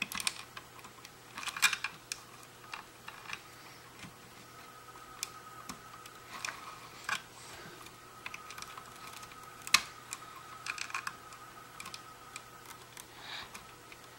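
Wire crimp connectors being pushed onto the terminals of a plastic control box: scattered small clicks and handling rustles, the sharpest click about two-thirds of the way through.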